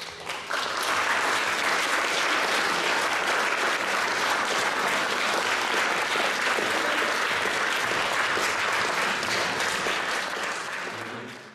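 Audience applauding, the clapping building within the first second and holding steady, then cut off suddenly near the end.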